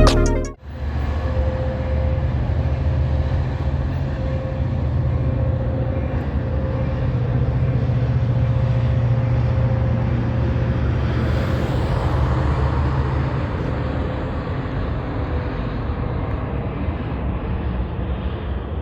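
Steady low rumble of a train at the station, easing a little in the second half.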